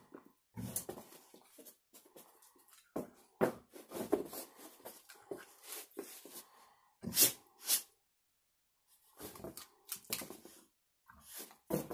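Dog rolling and rubbing itself on the carpet, scuffling and pawing in short irregular bursts, with snuffling breaths; two sharper bursts come about seven seconds in.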